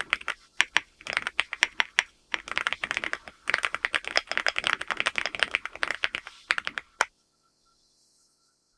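Typing on a LEOBOG Hi8 full-aluminium mechanical keyboard with Graywood V4 switches: quick runs of keystrokes with a short pause about two seconds in. The typing stops about seven seconds in with one last sharp keystroke.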